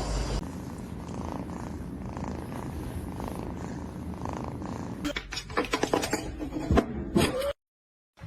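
Domestic cat purring, a steady low rumble with gentle swells, followed by a few seconds of sharp clicks and knocks that cut off suddenly near the end.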